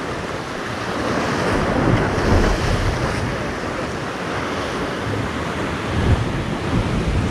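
Sea waves breaking and washing over shoreline rocks in a steady surging roar, with wind buffeting the microphone.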